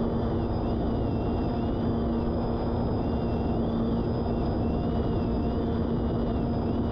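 Steady low mechanical rumble with a constant-pitch hum running through it, and faint high tones gliding up and down above it.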